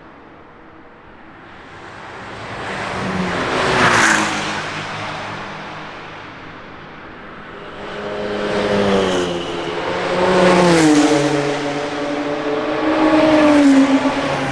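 Cars passing one after another on a fast racetrack stretch, each engine note rising as it approaches and dropping in pitch as it goes by: one about four seconds in, then several more close together in the second half.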